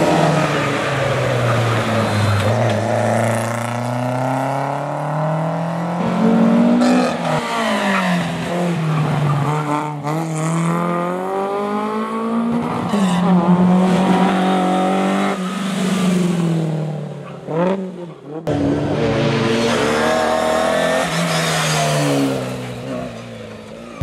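Historic rally car engines revving hard as the cars drive one after another along a tarmac stage. The engine pitch climbs and drops with each gear change and lift, with an abrupt cut to another car about eighteen seconds in.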